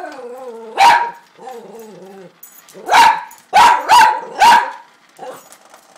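Toy fox terrier barking at a small vibrating Hexbug Nano toy bug: five sharp barks, the last four in a quick run, with drawn-out wavering grumbling in the first two seconds.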